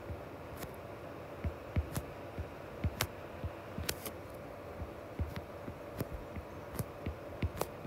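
Stylus tip tapping and clicking on a tablet's glass screen while handwriting digits: irregular light clicks, one to three a second, over a faint steady hum.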